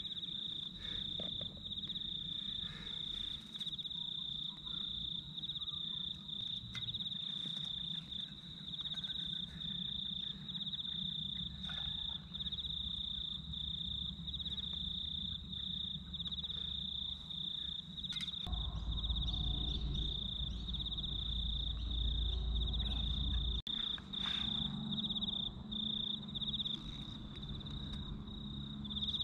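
Crickets chirping in a steady, high-pitched pulsing trill. A low rumble joins in for about five seconds past the middle.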